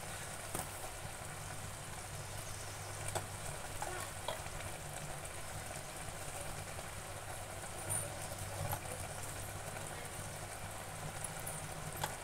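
Mutton, onion and tomato gravy frying and simmering in an open aluminium pressure cooker on a gas burner: a steady low sizzle, with a few faint clicks.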